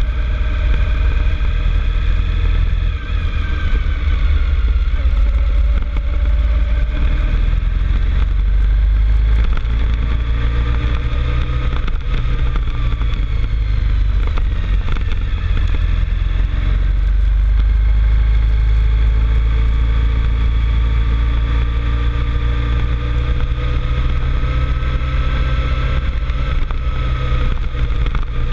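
The engine of the vehicle carrying the camera runs steadily under load as it climbs a mountain road, its pitch slowly rising and falling. A heavy wind rumble on the microphone runs underneath.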